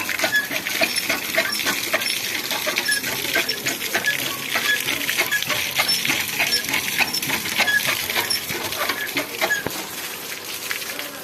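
Dense, overlapping chirping and chattering of a flock of small birds, with many short chirps and clicks crowding together throughout.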